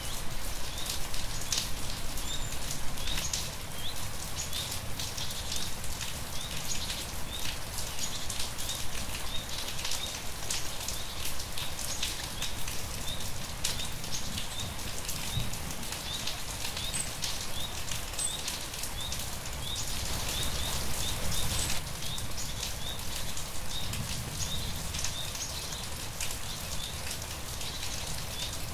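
Steady rain falling, with many distinct drop splats. Short high chirps repeat every second or so through it.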